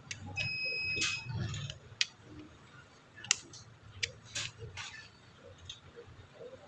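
A short steady electronic beep, then a series of sharp, scattered clicks and cracks as a dead LED is broken out of the light's series-wired LED string.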